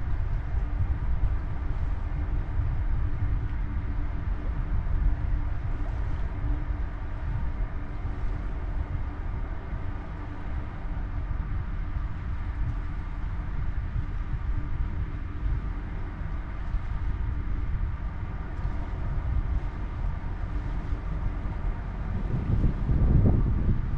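Steady low rumble of a ship's machinery heard on deck, with a faint even hum through it. Wind buffets the microphone more strongly near the end.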